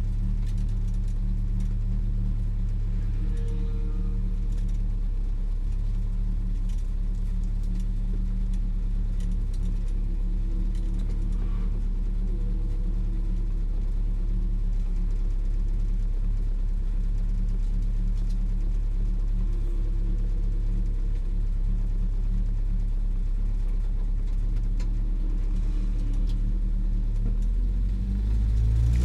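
Lotus Elan's twin-cam four-cylinder engine running at a steady speed with a constant low rumble, then rising in pitch and loudness near the end as it picks up revs.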